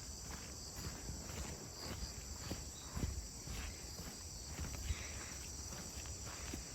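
Footsteps along a forest path at an even walking pace, under a steady high-pitched chorus of crickets and other insects.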